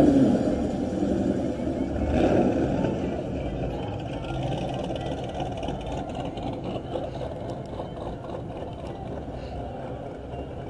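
A Chevrolet Camaro's engine revving hard as it pulls away, with a second, smaller rev about two seconds in. Its sound then fades into the steady noise of other cars rolling past.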